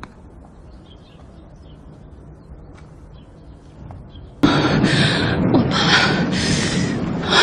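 Faint outdoor ambience with a few soft bird chirps. About four seconds in, a sudden cut to a child's loud, breathy sobbing and crying.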